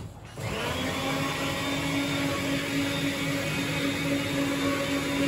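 A steady machine whir with a constant low hum, starting suddenly and holding unchanged.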